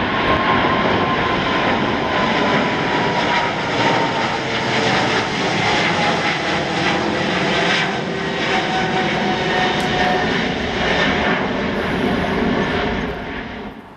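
United Airlines Boeing 777-200ER's GE90 jet engines at climb power as the airliner climbs out after takeoff: a steady loud roar with a fan whine that slowly falls in pitch as it moves away. The sound drops off suddenly near the end.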